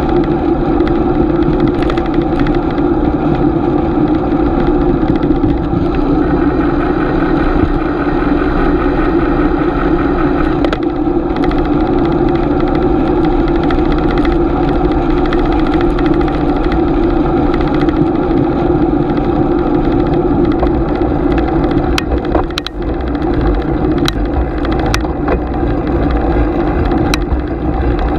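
Steady rushing wind and road noise of a bicycle riding along, with wind buffeting the microphone. A few sharp clicks come near the end.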